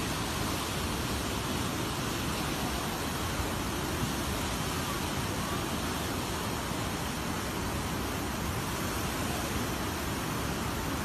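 Muddy floodwater rushing and churning past a riverbank: a steady, even rushing noise.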